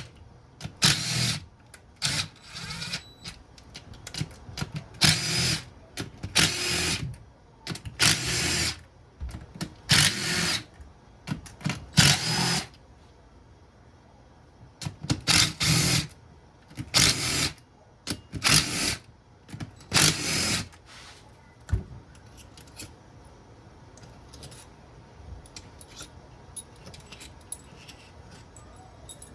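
Power drill with a socket spinning out the 8 mm crankcase bolts, in about twenty short bursts of under a second each. Near the end there are only faint small clicks of parts being handled.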